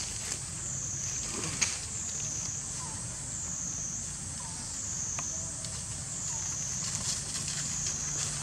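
Forest ambience: a steady high insect drone that swells and fades in a slow, regular pulse, with a few short chirps and a couple of sharp clicks.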